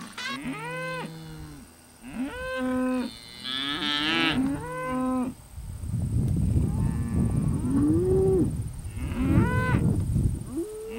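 Calf bawling: several long, pitched moos that rise and fall, repeated through the clip. A low rushing noise runs under the calls in the second half.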